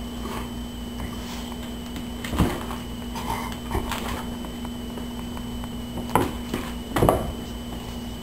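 Irregular thumps and scuffles of a Siamese kitten and a Labrador retriever play-fighting on a hardwood floor, loudest about two and a half seconds in and again near seven seconds, over a steady hum.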